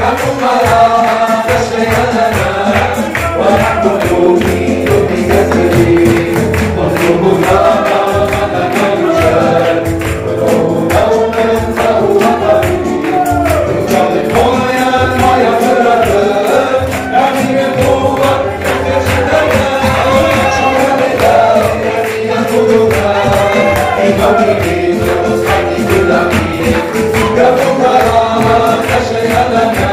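Church worship music: a group singing a song together over instruments with a steady percussive beat.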